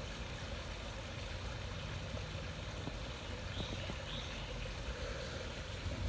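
Steady low rumble of outdoor background noise with a faint hiss, with no clear event in it.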